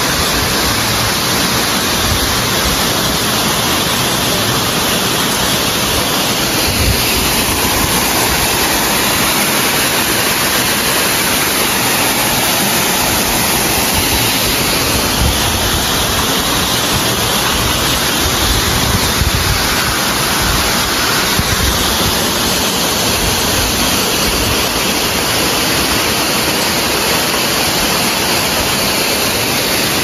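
Temesi Waterfall's falling water making a loud, steady rush.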